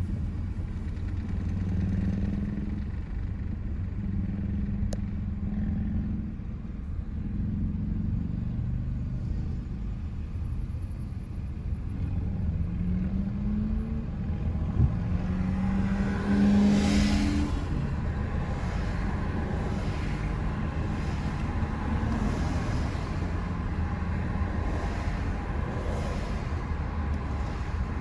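Car engine idling, heard from inside the cabin while stopped at a traffic light, with other vehicles passing. One passes louder about two-thirds of the way in. A faint swish repeats about once a second in the second half.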